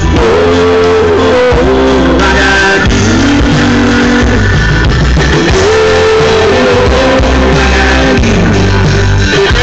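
Live band playing loud amplified rock music through a large PA system, with guitars over heavy bass.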